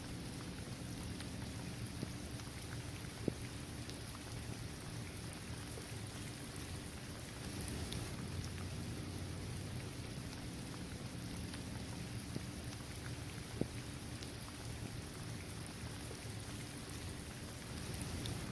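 Steady rain falling on a paved basketball court, trees and grass, with a few louder single drop ticks, the sharpest about 3 s and 13.5 s in. A steady low rumble runs underneath.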